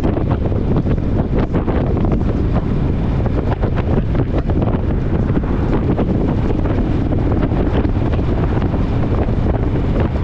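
Strong wind buffeting the microphone: a loud, steady low rumble with constant flutter.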